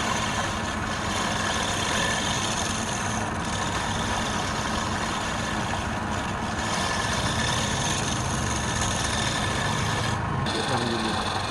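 Woodturning lathe running steadily, a continuous machine drone with a constant hum.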